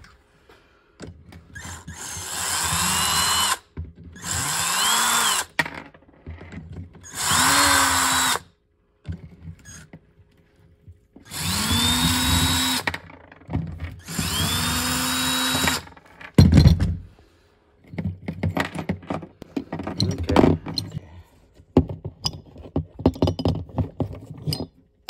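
Power drill with a socket spinning nuts off the U-bolts of wire-rope clamps on a steel winch cable, in five short runs, the motor whine rising as each run spins up. After that, loose metal clinks and knocks as the clamp parts and hook are handled, one knock louder than the rest.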